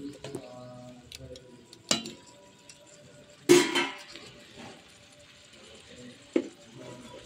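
Spatula stirring leafy greens and onions in a stainless steel pan, with a soft rustle and three sharp knocks of the spatula against the pan, the loudest about three and a half seconds in.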